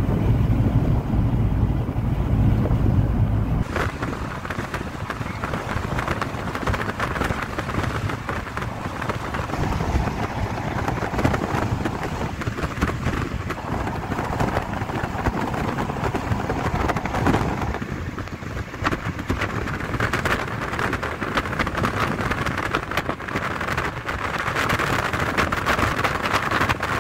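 Road and wind noise from inside a moving vehicle, a steady rushing hiss. Heavy wind buffeting on the microphone during the first few seconds cuts off suddenly about four seconds in.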